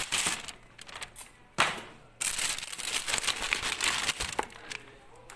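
Plastic wrapping crinkling and rustling close to the microphone in irregular bursts, with a sharp crackle about one and a half seconds in and a longer stretch of crinkling after it.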